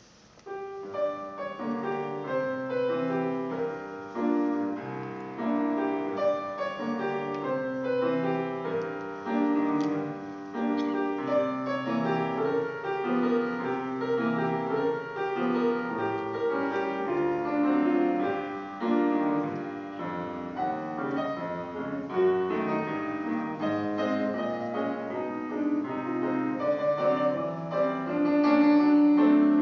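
Solo grand piano playing a piece of many quick notes, starting about a second in.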